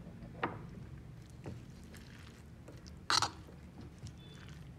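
Metal spoon clinking and scraping against a bowl while sauce is stirred into rice and vegetables, with a few light taps and a louder scrape about three seconds in, over a low steady hum.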